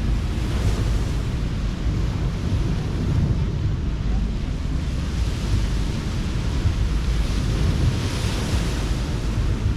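Ocean surf washing onto the beach, with wind rumbling on the microphone. The hiss of the surf swells about a second in and again near the end.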